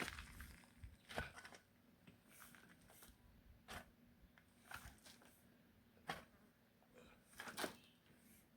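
Faint, short scrapes and crunches in loose murram soil, about seven of them at irregular intervals of a second or so.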